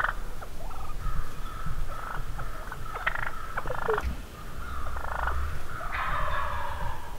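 Wild turkey gobbler strutting and drumming: a deep, low hum that swells about five seconds in, among short turkey calls that come irregularly, with a longer one near the end.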